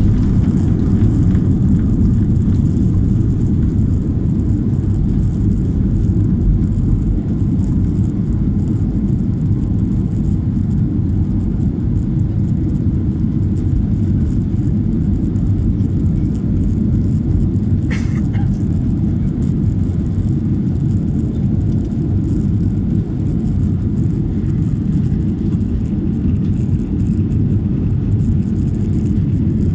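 Steady jet airliner cabin noise during the climb after take-off: a constant low rumble of engines and airflow. One short click about eighteen seconds in.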